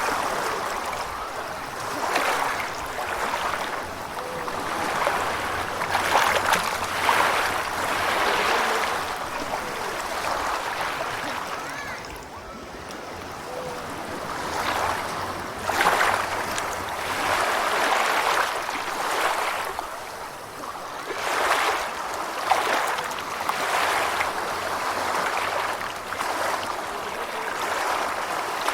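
Gentle ocean waves washing in, a noisy wash that swells and fades every second or two, with a quieter lull about twelve seconds in.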